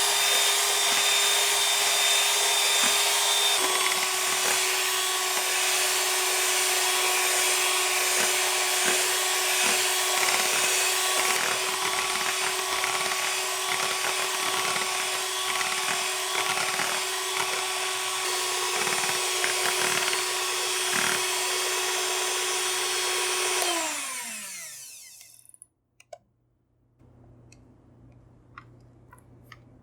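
Electric mixer running at steady high speed, beating eggs for the sponge batter. About 24 seconds in it is switched off, its pitch falls as it winds down, and a few faint clicks follow.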